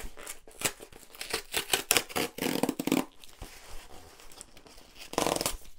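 Cardboard mailing box being opened by hand: tearing, scraping and rustling with sharp clicks, densest from about half a second to three seconds in, and another short burst near the end.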